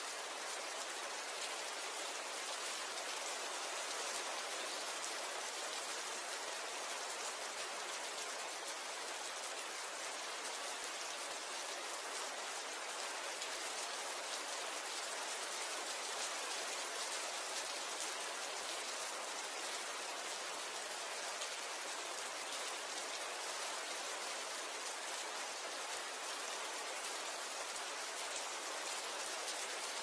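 Steady rain falling, an even hiss of many drops that holds at the same level throughout.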